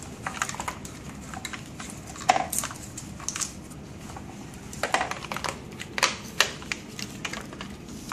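Irregular plastic clicks and knocks as a CRRT tubing set is handled and fitted onto the front of a Prismaflex machine, a few of them sharper and louder, over a low room hum.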